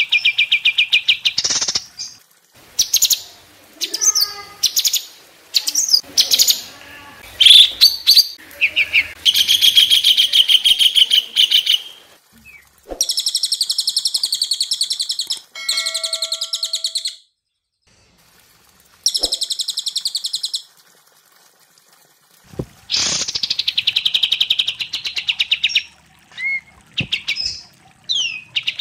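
Cage songbirds singing: cililin, kapas tembak and cucak cungkok. The song comes in bursts of fast, evenly pulsed chattering trills, each one to three seconds long, with short pauses between them and a few whistled notes and quick pitch sweeps in the gaps.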